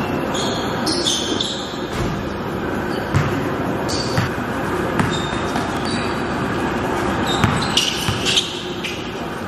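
Basketball bouncing on a hard gym floor, with a few scattered thumps, and short high squeaks of sneakers on the court, echoing in a large hall.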